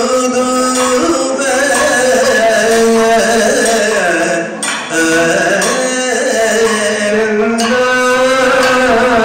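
Kathakali music: male singers chanting a slow, gliding song over a steady drone, accompanied by maddalam drum strokes and metal cymbal or gong beats.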